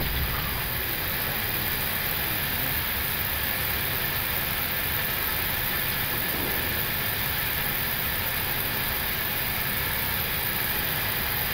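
Steady, even noise on the flight deck of an Airbus A321neo taxiing in after landing, with its engines at idle.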